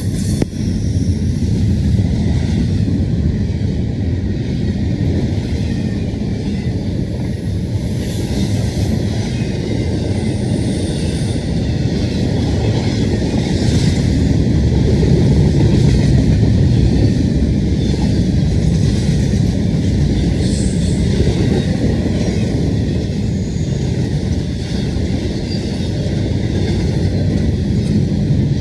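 Freight train rolling past, a steady low rumble of its wheels and cars on the rails.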